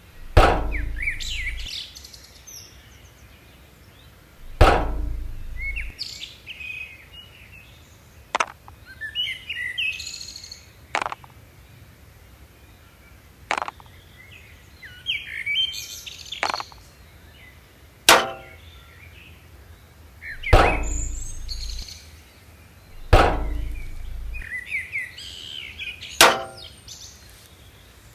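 Birds chirping steadily, with a sharp click or knock every two to three seconds, several of them carrying a dull low thump.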